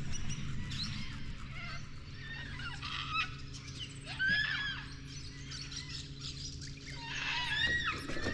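Wild birds calling and chirping, with short arching calls that come in clusters about halfway through and again near the end. A steady low hum runs underneath.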